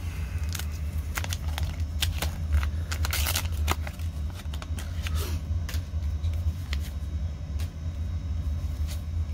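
A baseball-card pack's wrapper being torn open and crinkled by hand, giving scattered crackles and clicks, with a denser stretch of tearing a little past three seconds in. A steady low hum runs underneath.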